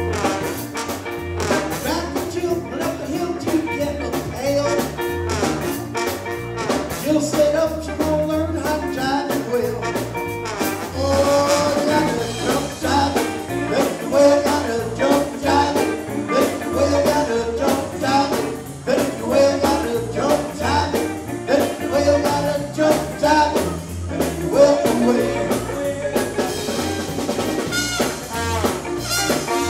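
Live band playing old-style R&B and soul, with brass horns (trombone and trumpet), electric guitar, bass and drum kit keeping a steady beat.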